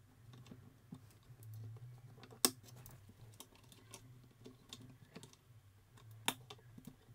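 Small clicks and scrapes of a flat screwdriver prying a Ferranti ULA chip up out of its socket on a circuit board, with two sharp clicks, one about two and a half seconds in and one near the end. A low steady hum runs underneath.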